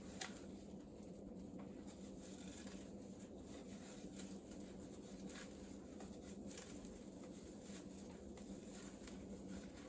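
Cat's claws raking a sisal-rope scratching post: faint, scratchy scraping with a few scattered clicks.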